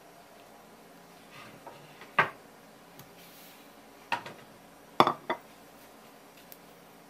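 A ceramic plate knocking on a wooden cutting board as it is handled and set down: four sharp knocks, the last two close together and the loudest.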